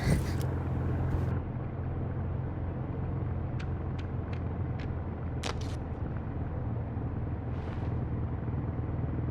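Steady low rumble, with a few faint short ticks and one brief sharper noise about halfway through.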